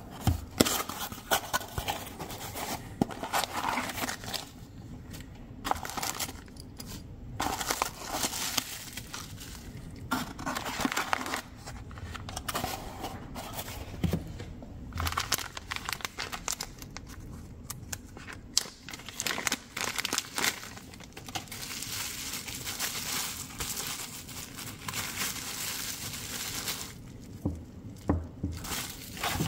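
Plastic packaging and bubble wrap crinkling in irregular bursts with short pauses as parts are unpacked and unwrapped by hand, with a few light knocks as items are set down.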